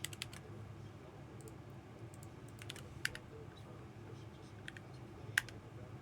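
Computer keyboard keys clicking in a few scattered taps, the loudest about five and a half seconds in, over a low steady hum.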